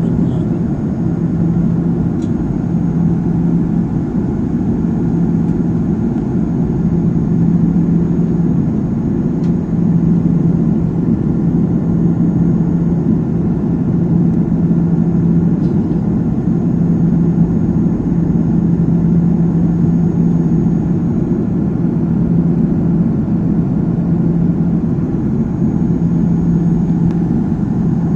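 Airliner cabin noise: the jet's engines and the airflow make a steady low drone with a constant hum.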